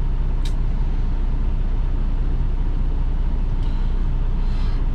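Steady low rumble of a semi-truck's diesel engine idling, with a single sharp click about half a second in.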